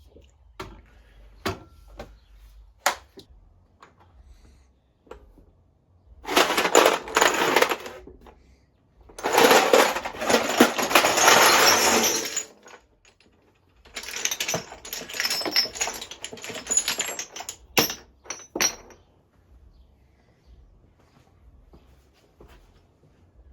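A few sharp clicks, then three bursts of dense rattling clatter, each a few seconds long, the middle one the loudest, with faint ticks after them.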